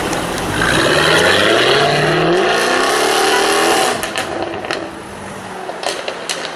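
Jaguar F-Type R's supercharged V8 accelerating hard, its pitch rising for about three seconds, then lifting off with a few sharp exhaust pops and crackles.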